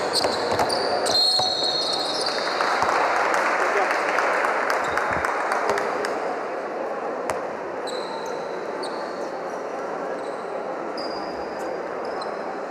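Live basketball game sound: a ball bouncing on a hardwood court in sharp, scattered knocks, with short high sneaker squeaks and a steady hum of crowd voices in the arena.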